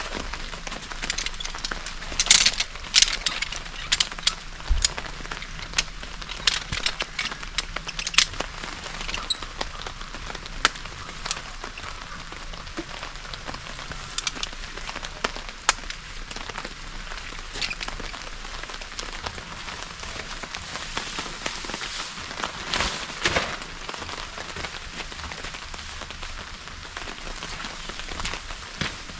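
Steady rain hiss with many sharp taps of drops scattered through it, the loudest cluster a couple of seconds in.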